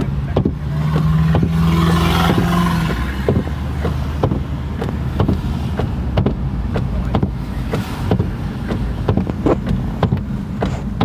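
Car cabin rumble with many irregular sharp taps of rain on the windshield and roof. In the first three seconds a vehicle hum swells and fades.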